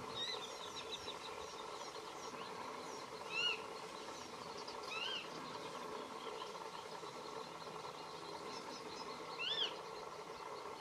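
Wild birds calling: three louder short arched whistled notes, a few seconds apart, over constant faint high twittering and a faint steady hum.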